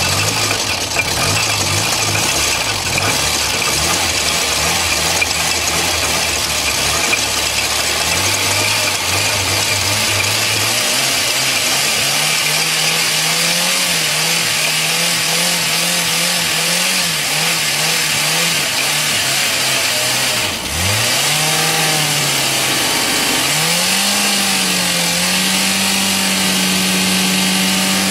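Car engine running with the wheel off, driving the bare brake disc at speed, under a steady hiss. Engine speed steps up about eight and eleven seconds in, dips sharply about twenty seconds in, then climbs back and holds a steady, higher pitch.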